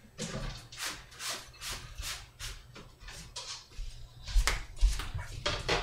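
A cutting board being cleaned off: a run of quick rubbing strokes, about two a second, with a couple of louder knocks a little past four seconds in.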